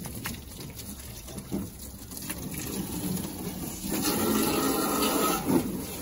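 Water from a garden hose spraying and splashing, getting louder from about four seconds in and easing off shortly before the end.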